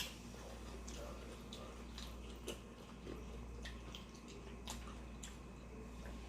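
Faint close-up eating sounds: scattered soft clicks and wet smacks of someone chewing a mouthful of nacho dip, over a low steady hum.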